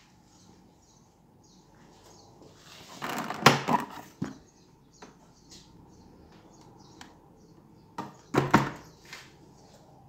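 Tumble dryer door being handled: a rustle and a burst of sharp clicks and knocks about three seconds in as the door is opened, and another burst about eight seconds in.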